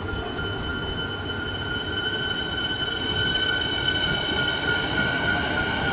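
Siemens Nexas electric multiple unit running slowly into the platform: a low rumble of the train with a steady high-pitched whine on top, swelling slightly about halfway through.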